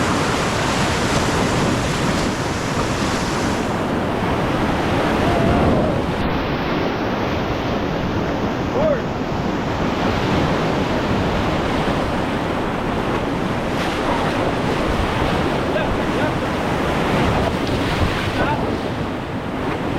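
Whitewater rapid rushing and churning steadily, with wind buffeting the microphone.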